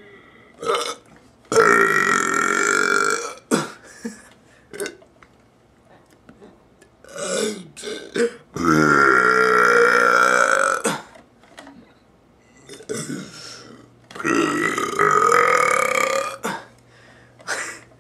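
A man burping over and over: three long drawn-out belches of about two seconds each, with short burps between them.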